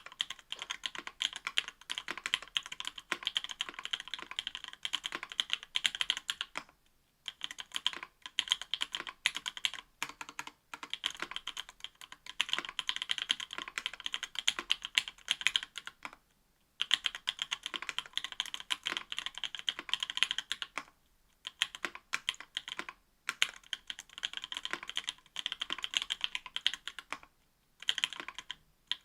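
Typing on a mechanical keyboard fitted with stock C³ Equalz x TKC Tangerine 67 g linear switches, an aluminum plate and GMK keycaps: a fast, steady run of keystroke clacks, broken by brief pauses every few seconds.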